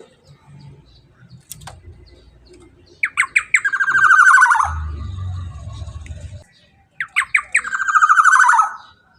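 Black-naped oriole (kepodang emas) calling twice, about four seconds apart. Each call is a quick run of short notes followed by a long harsh note that falls in pitch. A low rumble follows the first call.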